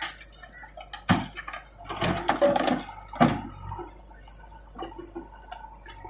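Stones and earth dropping from a backhoe bucket into a tractor trolley: a sharp crash about a second in, a run of clattering impacts around two to three seconds, and one more just after three seconds, over the steady running of the diesel engines.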